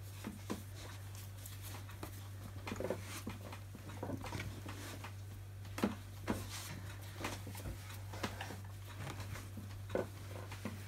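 Hands kneading brown bread dough on a floured wooden board: soft, irregular thuds and knocks as the dough is pushed, folded and rocked, over a steady low hum.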